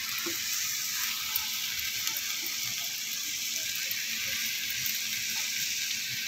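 Steady sizzle of chopped vegetables frying in oil in a kadhai as boiled chowmein noodles are tipped in on top, with a few light clicks of the steel strainer and utensils.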